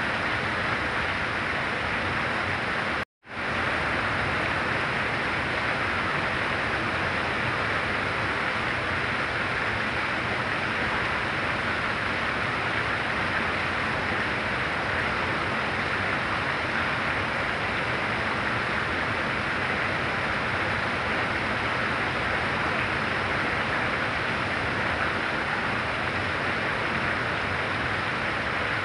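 Very heavy rain pouring down, a dense, even hiss with no change in strength. The sound cuts out completely for a split second about three seconds in.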